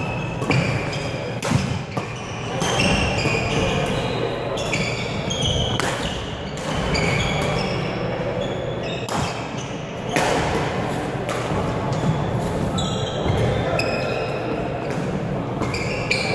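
Badminton doubles rally: repeated sharp racket strikes on the shuttlecock and footfalls, with athletic shoes squeaking briefly on the wooden court floor, echoing in a large hall, over background chatter.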